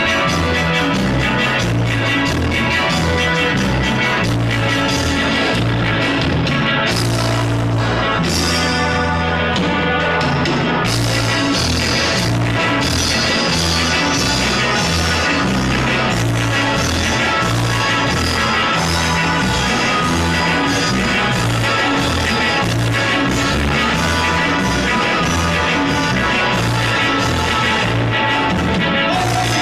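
Live dance band playing a chilena through a loud PA, with a steady beat and heavy bass; about seven seconds in the drums drop out for a few seconds before coming back.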